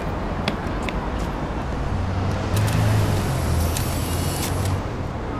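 Street traffic noise with a motor vehicle passing close. Its low rumble swells from about two seconds in, peaks around three seconds and fades before the end, with a thin high whine over it.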